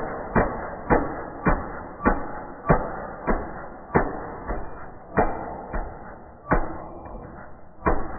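Homemade 3D-printed 180cc single-cylinder four-stroke engine firing in sharp, evenly spaced bangs, about two a second, that space out toward the end as it slows. The bangs sound dull, with no high end.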